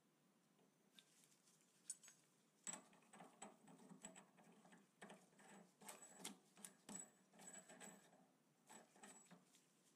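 Faint metallic clicks and scraping as an ER32 collet is pushed into a lathe collet chuck and the ER32 nut is threaded on by hand. The clicks come scattered, growing more frequent about three seconds in.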